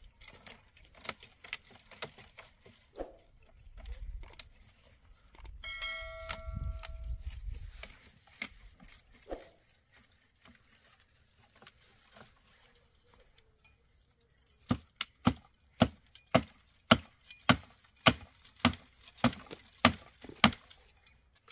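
Wood being struck with a hand tool: a steady run of sharp blows, about two a second, through the last third, after scattered lighter knocks and clatter. A brief ringing tone comes about six seconds in.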